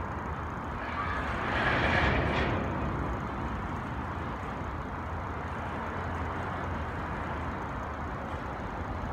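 Freight cars of a BNSF grain train rolling over a steel truss bridge: a steady rumble of wheels on the rails, briefly louder and higher-pitched about two seconds in.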